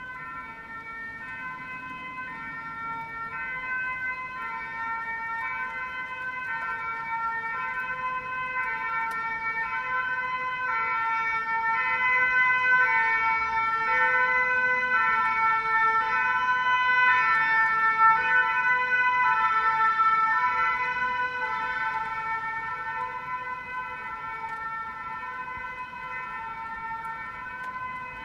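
Belgian emergency vehicle's two-tone siren alternating between a high and a low note, growing louder to a peak midway and then fading.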